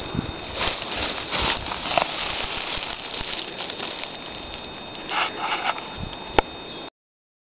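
Irregular rustling and crackling from footsteps and handheld camera movement over dry leaf litter, with a faint steady high whine underneath. The sound cuts out abruptly near the end.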